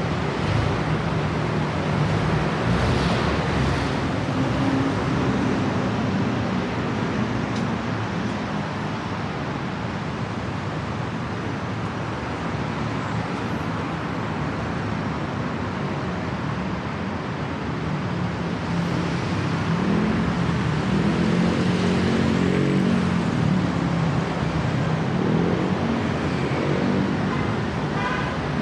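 Busy city road traffic: cars, buses and trucks running along a multi-lane street, a steady rush of engines and tyres. Heavier engines are heard close by near the start and again about two-thirds through.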